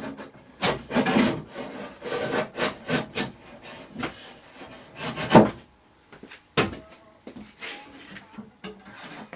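A blade being worked along the glued seam between a double bass's back and its ribs to open it: irregular scraping and rubbing on wood, with sharp cracks about five and a half and six and a half seconds in as the glue joint gives.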